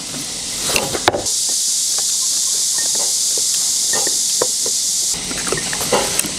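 Eating sounds at a meal: scattered clicks and knocks of chopsticks and bowls. A loud, steady high hiss starts abruptly about a second in and stops just as abruptly about five seconds in.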